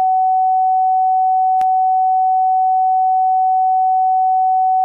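A single steady electronic beep tone at one mid pitch and constant level, dubbed over the audio in editing so that all other sound is gone, with one faint click a little over a second and a half in.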